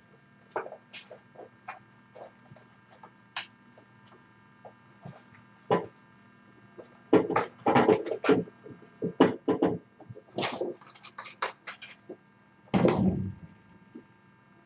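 Irregular knocks, scrapes and rustling of things being handled during a clean-up, loudest in clusters around the middle and near the end, over a faint steady hum.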